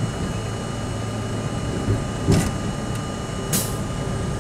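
Subway train running slowly into a station, heard from inside the front car: a steady hum with a low thump just before two seconds in and two short hisses of air, one a little after two seconds and one about three and a half seconds in.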